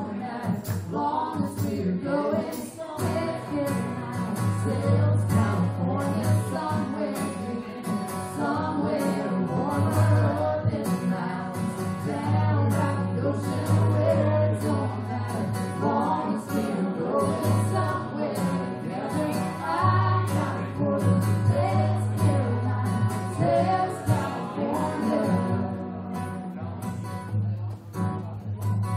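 Live acoustic guitar strummed under a man and a woman singing together.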